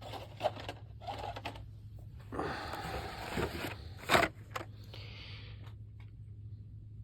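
Blister-packed Hot Wheels cars being handled and sorted: light plastic clicks and clacks, a stretch of rustling and scraping, and one sharp clack about four seconds in, over a low steady hum.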